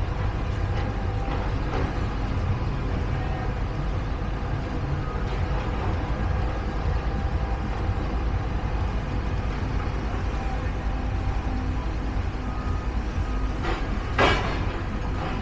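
Steady low rumble of heavy engines running, with one short, sharp burst of noise about fourteen seconds in.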